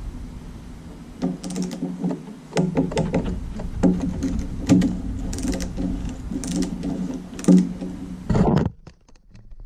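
Hand ratchet clicking in short runs as the oil pan bolts are run down, with a quick loud burst of ratcheting near the end before it stops.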